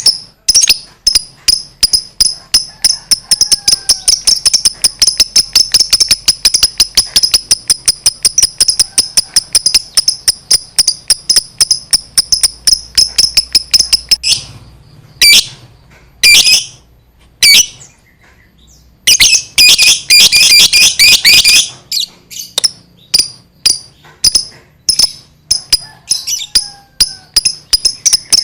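Lovebird's long 'ngekek' chatter: a fast, sustained string of sharp, high-pitched repeated notes, several a second. About halfway it breaks into a few separate calls and a short dense burst, then the rapid chatter resumes.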